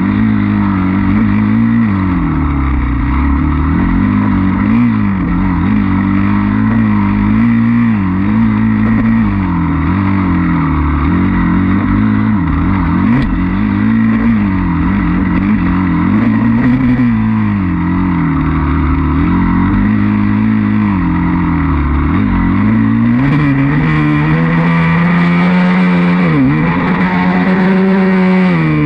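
Enduro dirt bike engine under way, its pitch rising and falling every second or two as the throttle is worked through tight trail turns. In the last few seconds it holds a steadier, higher pitch at speed, with one brief dip.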